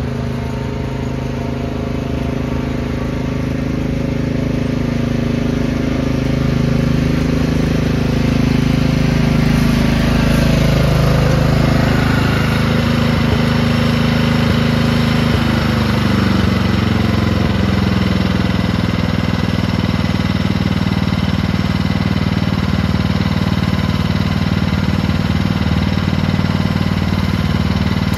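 Lawn tractor engine running while pulling a tow-behind dethatcher. It grows louder over the first ten seconds, its pitch drops somewhat about halfway through, and then it runs steadily.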